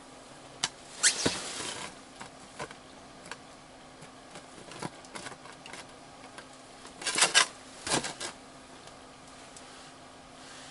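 Plastic ice-fishing tip-ups and their parts being handled: scattered clicks, taps and rustles, with a louder cluster of clicks around seven to eight seconds in. A faint steady hum runs underneath.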